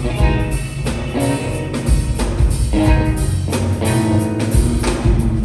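Live rock band playing an instrumental stretch of the song: a steady drum beat over bass and guitar, with no vocals.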